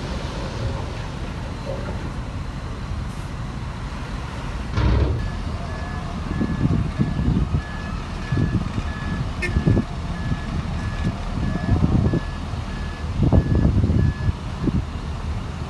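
A heavy machine's reversing alarm beeps at an even pace of about two beeps a second from about five seconds in until near the end. Under it a heavy diesel engine runs with irregular low surges, and there is a single thump just before the beeping starts.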